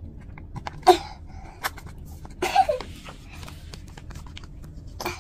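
A plastic squeeze bottle being pressed hard to squirt liquid into a zip-top plastic bag, with light crinkling of the bag. Two short breathy bursts stand out, one about a second in and one about halfway through.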